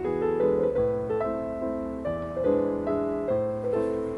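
Background piano music: a gentle melody of single notes struck about every half second, each ringing and fading.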